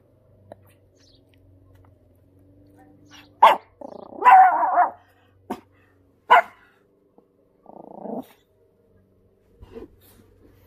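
A Pomeranian barking, a few short sharp barks and a longer run of barks a few seconds in, then a lower, longer bark and a last faint one near the end.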